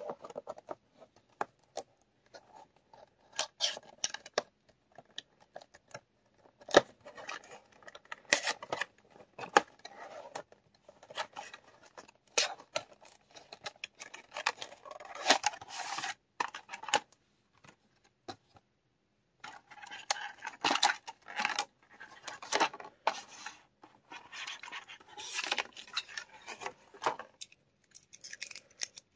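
Cardboard box and clear plastic packaging tray being handled and opened by hand: irregular clicks, scrapes and crinkles, with a short pause about two-thirds of the way through.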